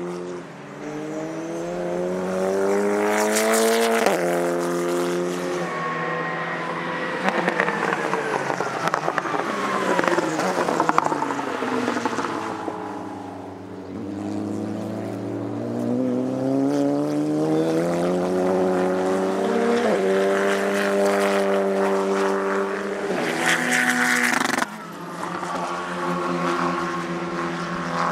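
TC2000 touring cars' turbocharged engines accelerating hard, the pitch climbing through the revs with sharp drops at each upshift. Between the pulls the engine note falls away as a car passes and recedes, then the next car winds up again.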